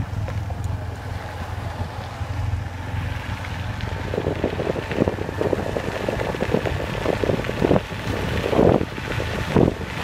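Wind buffeting the camera's microphone with a steady low rumble. From about four seconds in, dense irregular rustling and scraping joins it and grows louder, as the camera brushes through tall reed grass and palm fronds.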